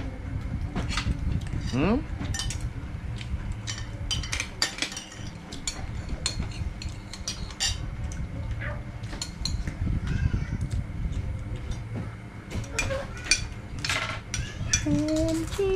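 Spoons clinking and scraping against plates and bowls while people eat, many short irregular clicks over a steady low background rumble.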